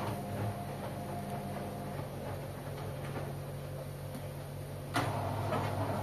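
Front-loading washing machines running a wash cycle: a steady motor hum with laundry turning in the drums. A sharp knock comes about five seconds in, followed by a few lighter knocks.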